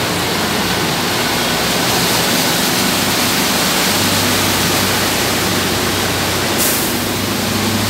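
Floodwater churning and splashing as a bus drives through it close by, a steady rushing hiss, with the low hum of bus engines that grows louder about halfway through as a minibus comes nearer.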